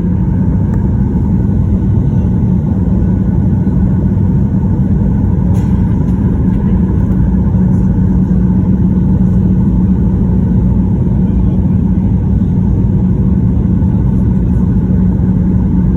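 A vehicle running steadily, a constant low drone over a dense rumble with no revving or change in pitch.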